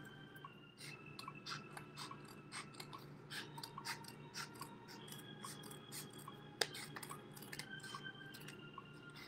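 Scissors snipping through a paper plate: a run of short, irregular cuts, with one sharper snip about two-thirds of the way through.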